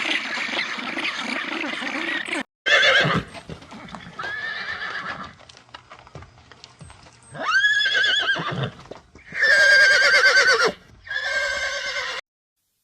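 Horse neighing: about five whinnies with a quavering, wavering pitch, the loudest two near the middle and toward the end. The first couple of seconds hold a different, noisy sound that cuts off before the neighs begin.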